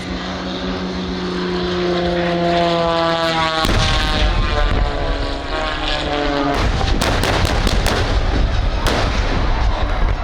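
Aircraft flying low past the crowd, its engine tone slowly dropping in pitch as it goes by, with a loud low rumble coming in about a third of the way through and several sharp cracks near the end.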